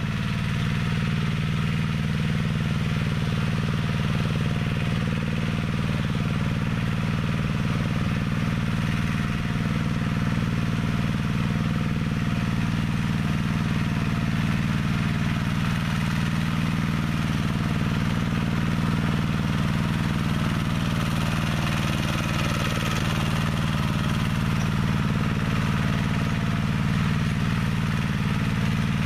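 Homemade minitractor's engine running steadily as it pulls cultivator tines through the soil.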